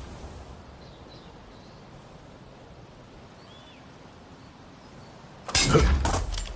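Spear combat sound effect: after a quiet stretch, a sudden loud crashing clash of several quick impacts about five and a half seconds in, lasting about a second.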